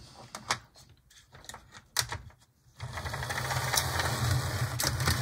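A few clicks as an HO-scale Mantua GP20 model diesel locomotive is set on the rails by hand, then, about three seconds in, its electric motor and gears start a steady buzzing whir as it runs along the sectional track.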